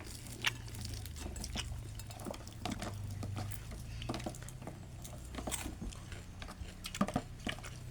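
Eating sounds: chewing and small scattered clicks, over a low steady hum.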